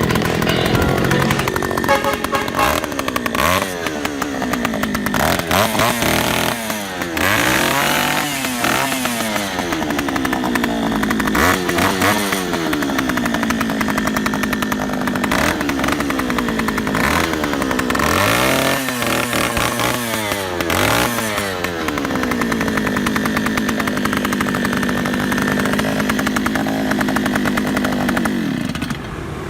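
Small petrol engine of an Oshima 2PS earth auger being revved: its pitch rises and falls back again and again as the throttle is opened and released, then it runs steadily for the last several seconds.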